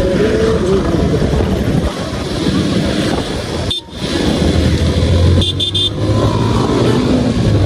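Motorcycle riding in busy town traffic: a steady mix of engine, wind and road noise. Vehicle horns beep briefly near the middle and again about a second and a half later.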